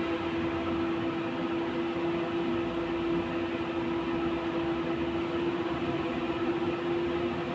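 Inside a 71-911EM 'Lvyonok' low-floor tram in service: steady running noise with a constant electrical hum held at one pitch.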